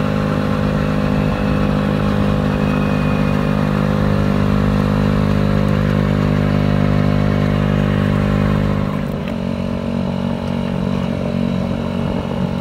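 2006 Honda Ruckus scooter's 49 cc four-stroke single-cylinder engine running steadily through its loud exhaust while riding. About nine seconds in the engine note drops lower and a little quieter.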